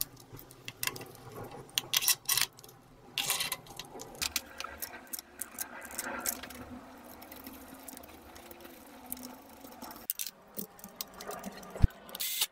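Scattered small clicks and taps of metal parts being handled as diesel fuel injectors are pushed into a TDV6 engine's cylinder head, with one sharper click near the end.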